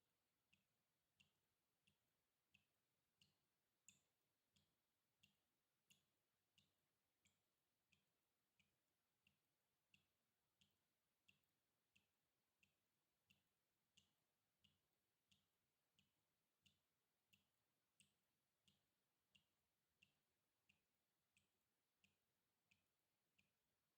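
Water dripping: single drops fall at a steady, even pace of about three every two seconds, each a short, faint drip.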